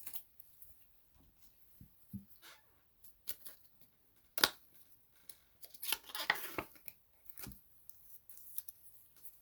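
Trading cards and plastic penny sleeves being handled: scattered light clicks and brief rustles, with a sharper click about four and a half seconds in and a short burst of rustling around six seconds.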